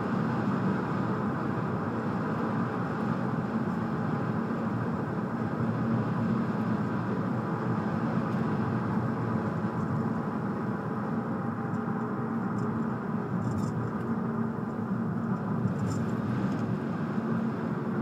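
Steady road and engine noise inside a moving car's cabin: tyres on the road and the engine running, with a faint steady hum.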